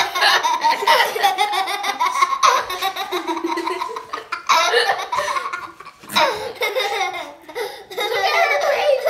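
Children laughing and giggling loudly, with a short break about six seconds in.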